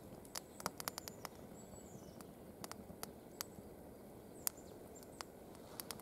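Wood fire crackling in a Swedish fire torch of upright log sections, kindling burning between them: irregular sharp pops and snaps, one louder pop about four and a half seconds in.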